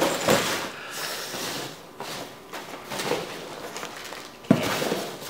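Foam packing peanuts rustling as hands dig through them in a cardboard box, mixed with plastic wrapping crinkling, with a sharper knock about four and a half seconds in.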